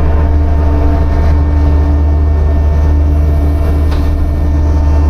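Skid steer running with a Blue Diamond extreme duty hydraulic brush cutter: a loud, steady low engine drone with a steady whine above it.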